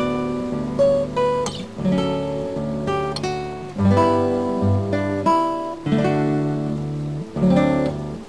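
Acoustic guitar playing a slow passage of plucked chords and single notes, each struck sharply and left to ring and fade.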